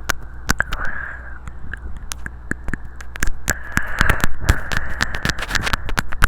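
Mic nibbling: mouth and teeth working right on a microphone, making rapid irregular clicks and crackles over a breathy hiss and a steady low hum.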